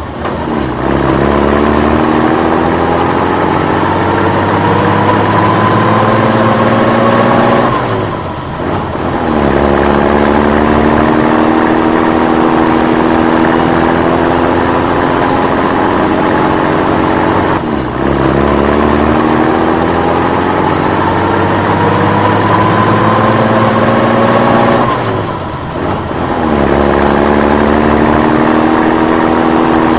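Tractor engine sound effect played on a loop: the engine note climbs steadily for about eight seconds, dips briefly, then starts climbing again, the same cycle repeating through the clip.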